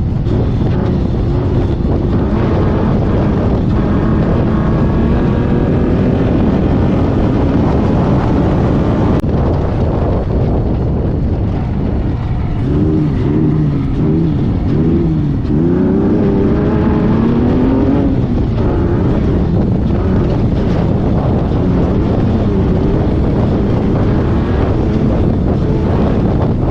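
Off-road race buggy's engine running hard at speed, heard from inside the car, over a loud rush of wind and road noise. About halfway through, the engine note rises and falls several times as the throttle comes off and back on.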